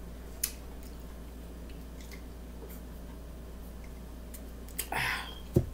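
Soda being sipped through a straw from a plastic cup, with a few faint clicks. Near the end comes a short breathy sound, then a single low thump as the cup is set down.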